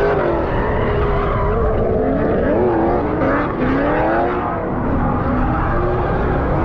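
Drift cars on a parking-lot course, their engines revving up and falling back again and again, with tires skidding. A low wind rumble on the microphone lies under it.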